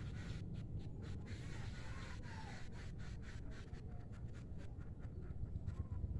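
Outdoor background noise: a low, steady rumble with many faint, irregular clicks and ticks.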